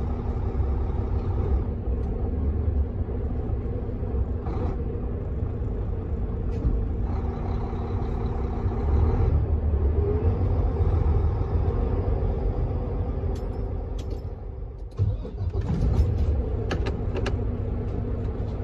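Semi-truck's diesel engine running as the truck rolls slowly forward, heard from inside the cab. The sound drops briefly about fifteen seconds in.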